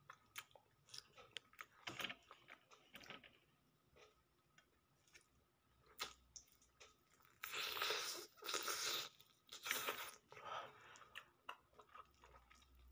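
Close-up eating sounds: chewing air-fried fish eaten by hand, with scattered small mouth clicks and louder crunchy stretches between about seven and a half and ten and a half seconds in.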